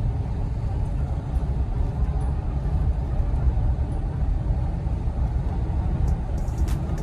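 A car driving on a paved road, heard from inside the cabin: a steady low rumble of tyre and engine noise.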